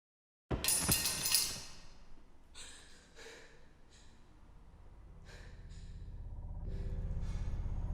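A sudden loud rush of noise about half a second in, out of dead silence, then a person's ragged gasping breaths, several in a row. Low film score music swells in and holds steady near the end.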